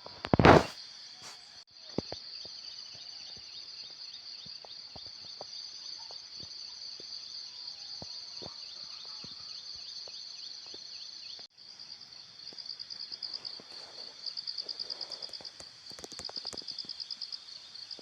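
Insects chirring steadily in a high band, crickets or similar, with a brief loud thump about half a second in. The chirring cuts out briefly past the middle and comes back as a rapid pulsing chirp.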